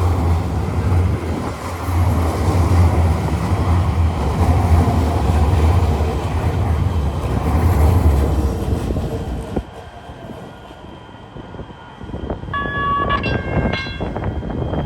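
LA Metro light-rail train running through the station: a loud, steady low hum with rumble that fades about nine seconds in. Near the end come two short, pitched warning signals.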